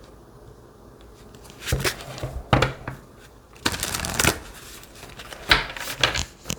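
Tarot cards being shuffled by hand: after a short quiet, four brief bursts of cards rustling and slapping together.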